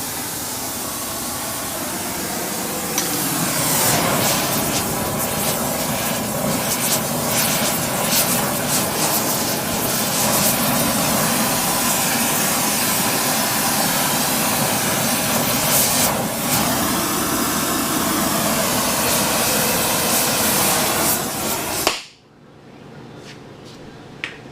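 Electric arc welding on steel: a loud, steady crackling hiss of the arc that stops abruptly near the end, followed by a couple of faint clinks.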